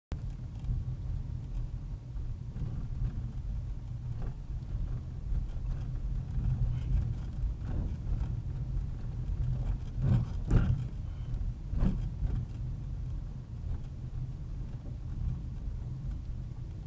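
Car driving, with a steady low engine and road rumble and a few short knocks about ten and twelve seconds in.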